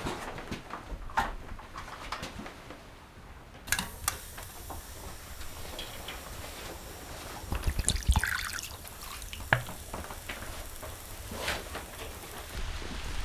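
Water trickling and dripping, with scattered irregular clicks and knocks.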